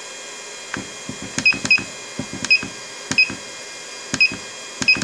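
iCharger 306B balance charger keypad: its Dec button pressed again and again, each press a click with a short, high beep from the charger, about eight in all at uneven spacing. It is the charge current being stepped down.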